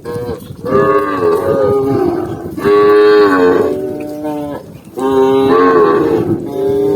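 A cow mooing repeatedly: a series of long, loud calls, one after another with short pauses between them.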